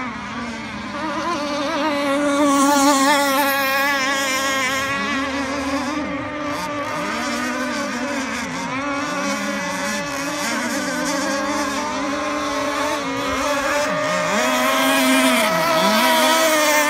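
Several gas-powered RC catamaran race boats' small two-stroke engines running at high revs together. Their pitches waver and dip briefly several times before climbing back.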